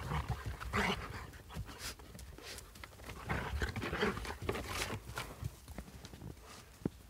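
Two dogs play-wrestling in snow on a wooden deck, scuffling and breathing hard in irregular bursts.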